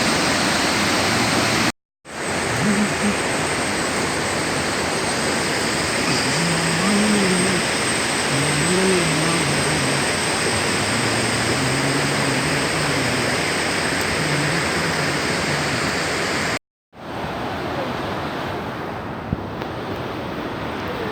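Waterfall's rushing water, a steady dense hiss of falling water, with faint voices under it partway through. It cuts out briefly twice.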